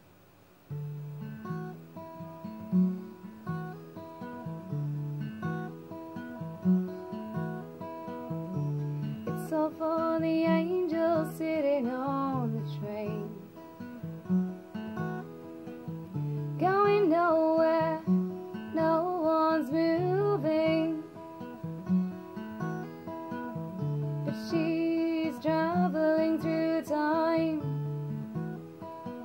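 Acoustic guitar picked in a steady repeating pattern, starting just under a second in. A woman's voice sings three wordless phrases over it, from about ten seconds in.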